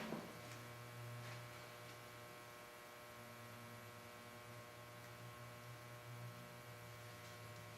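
Faint steady electrical hum, with a couple of faint light scrapes in the first second or so.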